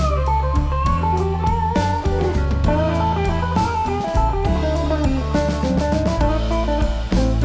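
Background music: an electric guitar melody over bass and drums with a steady beat.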